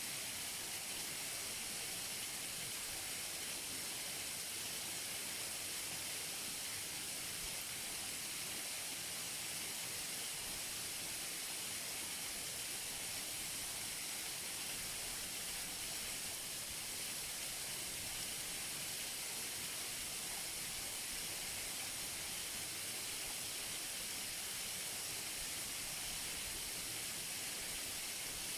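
Waterfall: falling water making a steady, even hiss, strongest in the high range, with no breaks or changes.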